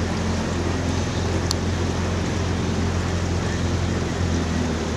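Boat's outboard motor running steadily, a low even hum with wind and water noise over it.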